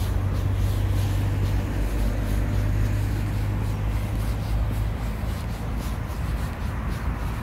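A motor vehicle's engine running close by: a steady low hum, loudest in the first three seconds, over general street noise.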